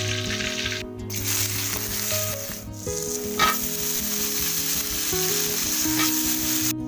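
Food sizzling and frying in hot oil in a pan, with a sharp clack about halfway through.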